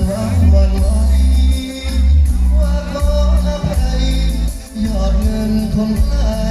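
Live Thai luk thung band playing loudly through a PA, with a singer's voice over heavy bass and a steady cymbal beat.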